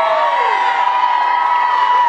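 Crowd cheering, with several voices holding long whoops that fall away at the end.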